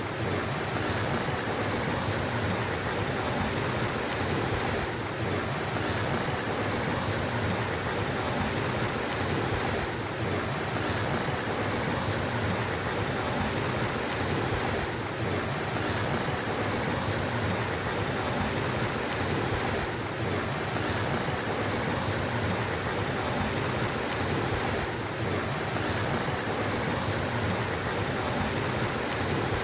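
Steady rushing of flowing water in a mountain stream, a constant even wash of noise with slight brief dips about every five seconds.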